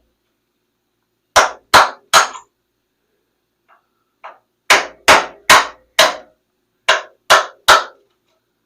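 Hammer blows on the steel frame of a 1970 Triumph TR6: three quick strikes, a pause, then two runs of four and three sharp strikes, each ringing briefly.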